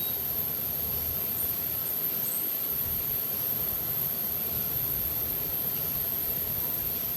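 Steady machine hum and hiss from a TRAK VMC10 CNC vertical machining center, with a constant very high-pitched whine over it.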